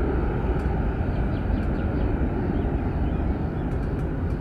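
Airbus A321-231 airliner climbing away at takeoff thrust, its twin IAE V2500 turbofan engines giving a steady, deep jet rumble heard from the ground that slowly fades as it recedes.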